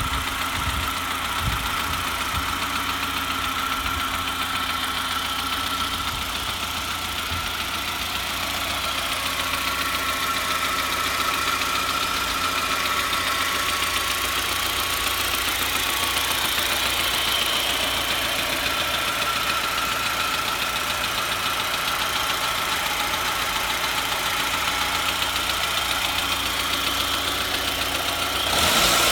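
Saab 9000 2.3T's turbocharged four-cylinder engine idling steadily with a knocking noise, which the owner hears only when the engine is warm and cannot place between the valvetrain and rod knock.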